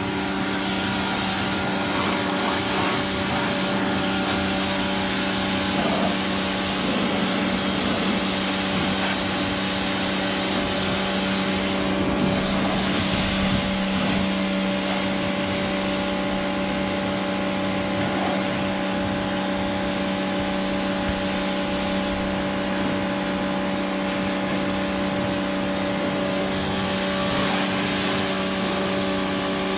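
Pressure washer running steadily, its motor and pump humming under the hiss of the high-pressure water jet spraying the side-by-side.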